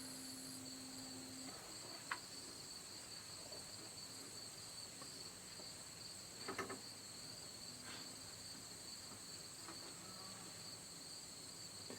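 Steady chorus of insects, a continuous high trill, with a single sharp click about two seconds in and a brief faint rustle around the middle.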